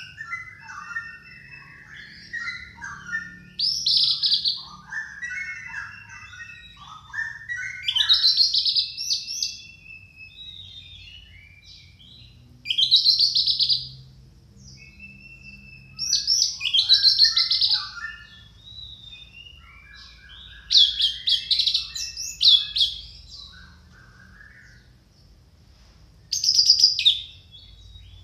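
Orange-headed thrush singing a loud, varied song: bright phrases come about every four seconds, with softer twittering notes between them.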